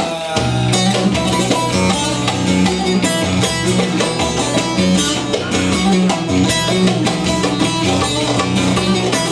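Instrumental folk music: plucked string instruments playing a continuous rhythmic passage, with no singing.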